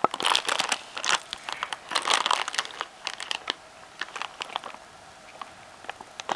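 Clear plastic bag crinkling and crackling as it is handled, in dense bursts over the first few seconds, then sparser and quieter.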